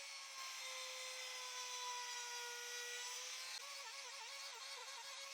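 Wood router with a 45-degree chamfer bit running at full speed with a steady high whine. About two-thirds of the way in, the pitch starts dipping again and again as the bit bites into the wood corners under load.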